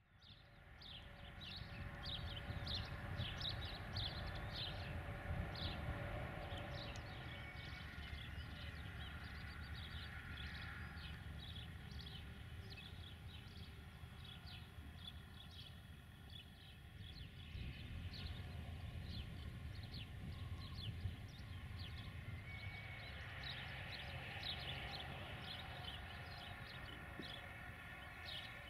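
Outdoor birdsong, many short quick chirps from several birds, over a low steady rumble; the sound fades in over the first second.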